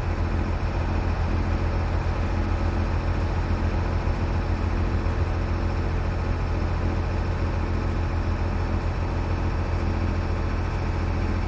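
A sailboat's inboard engine running steadily under way: a constant low drone with a fast, even pulse.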